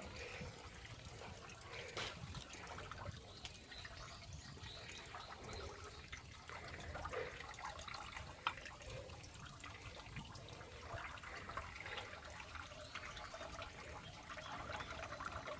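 Faint trickling water from a drinking-water fountain, with a few small drips and ticks.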